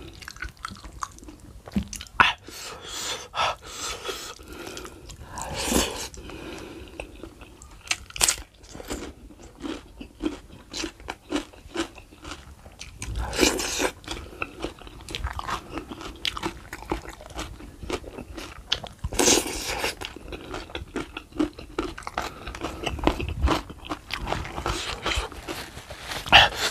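Close-miked mukbang eating of boiled beef foot and rice by hand: wet chewing, biting and mouth smacks in irregular bursts, with a few louder crunchy bursts about halfway and about two-thirds of the way through.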